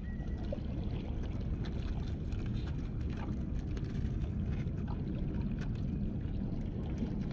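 Steady low rumble of wind and river water along the shore, with scattered light clicks.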